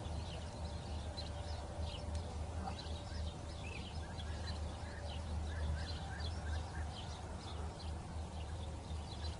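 Birds chirping in short, irregular high calls over a steady low hum.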